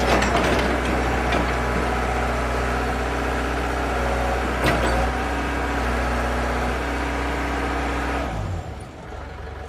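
Caterpillar E70B excavator's diesel engine running steadily, with a single click about halfway through. About eight seconds in the engine sound drops sharply in level, leaving a lower hum.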